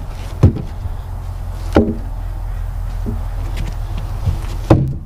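Heavy wooden knocks from cedar cants being shifted by hand, about five sharp, unevenly spaced thumps of wood on wood, over a steady low hum.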